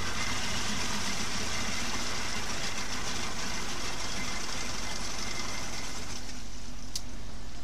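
Mercury 25 hp outboard engine running steadily with its lower unit submerged in a drum of water, the water churning around the leg.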